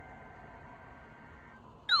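Faint steady tones and hiss from a radio, then near the end a weather radio receiver's alarm siren starts abruptly and loud, a fast repeating wail of about three sweeps a second, set off by the weekly test's attention signal.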